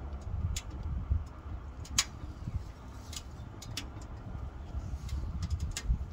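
Sharp, irregular clicks and crackles from a Pomoly Dweller Max 2.0 stainless steel wood stove as its stovepipe damper and lower air control are turned down on a full load of burning wood, over a low steady rumble.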